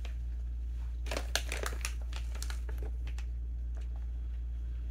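Large plastic bag of peanut butter M&M's crinkling as it is handled and waved about, a cluster of crackles between about one and three seconds in, over a steady low hum.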